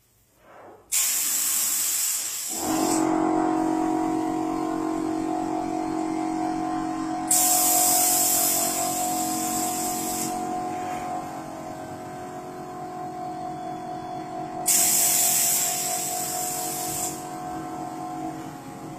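Paint spray gun hissing in three bursts of about two to three seconds each as paint is sprayed. A steady motor hum starts about two and a half seconds in and runs underneath.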